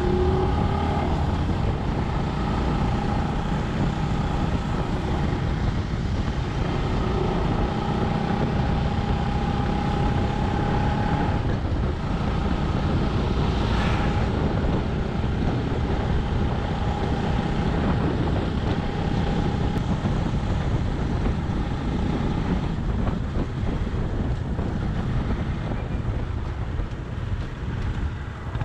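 Motorcycle under way, its engine running steadily beneath heavy wind noise on the microphone.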